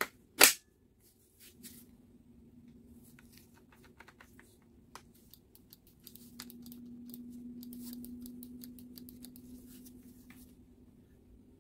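Lithium-ion battery pack snapping into a Milwaukee M18 FUEL cordless circular saw with one sharp, loud click about half a second in, followed by light clicks and rattles as the saw is handled and turned over.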